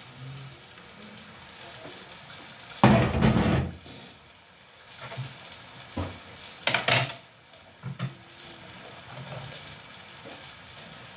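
Food sizzling softly in a frying pan on a gas stove, broken by loud clatters of metal cookware: a long clatter about three seconds in, a sharp clang near seven seconds and a few lighter knocks.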